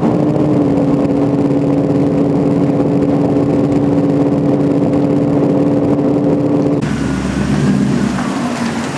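Toyota Tundra prerunner's engine running at a steady pace while driving, a constant even hum. About seven seconds in, the sound changes abruptly to a lower rumble with more hiss.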